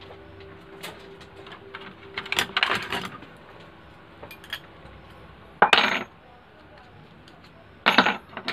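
Metal tools and parts clinking and clattering on a workbench: a scatter of light clicks, then two louder clatters a few seconds apart near the end.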